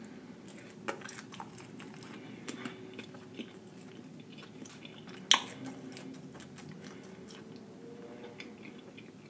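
A man chewing a mouthful of a Wendy's fast-food sandwich: soft, wet mouth clicks and smacks, with one louder click about five seconds in.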